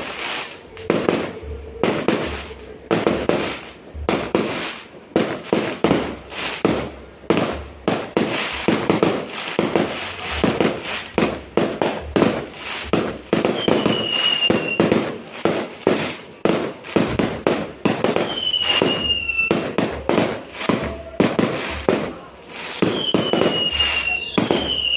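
Fireworks going off in a rapid, continuous string of sharp bangs, several a second. A few short falling whistles cut through in the second half.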